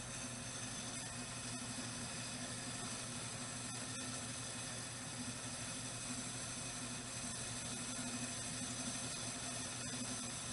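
Steady hiss of background noise with a faint low hum, unchanging throughout and with no distinct events.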